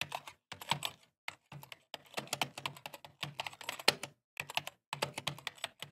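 Keyboard typing sound effect: rapid, irregular key clicks in short runs with brief pauses, matching a caption being typed out on screen.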